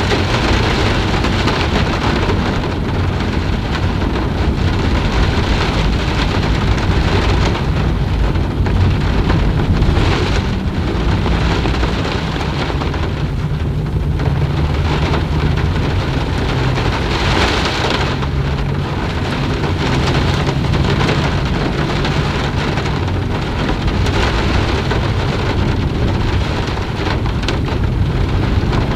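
Steady rain falling, an even hiss of drops on surfaces over a continuous low rumble.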